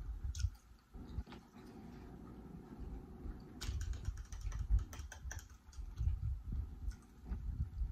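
Close-miked chewing of a mouthful of roast chicken: irregular wet mouth clicks and smacks over low jaw thumps, busiest in the middle.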